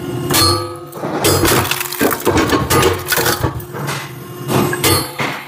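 Hydraulic log splitter forcing a log through its cross-shaped wedge: the wood splits with a series of sharp cracks and clatters of falling pieces, over the steady hum of the machine's hydraulic unit.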